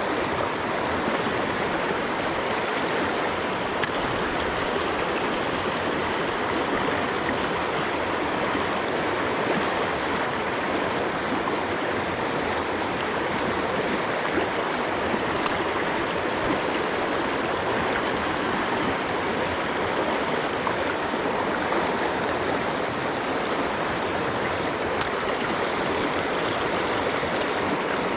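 Mountain stream water rushing steadily, an even wash of flowing water.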